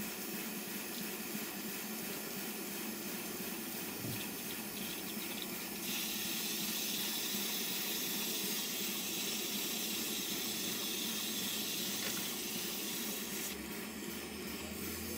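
Live steam injector on a model steam locomotive working, a steady watery hiss as it feeds water into the boiler. About six seconds in, a louder rush of steam takes over because the water tank feeding the injector has run empty, and it eases off again near the end.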